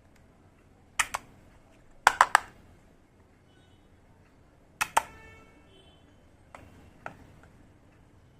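Miniature toy kitchen pieces being handled and set down: sharp clicks and clacks, a pair about a second in, a quick run of four a second later, then a knock near the middle that leaves a short ringing tone, and two lighter clicks near the end.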